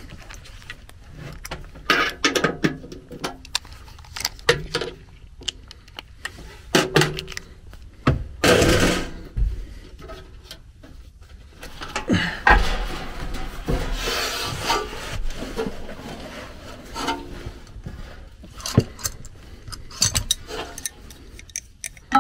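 Irregular handling noise of hand tools and furnace parts: rummaging in a tool bag, clicks and knocks of metal, and short scrapes and rubs against a furnace blower housing, busiest in the middle.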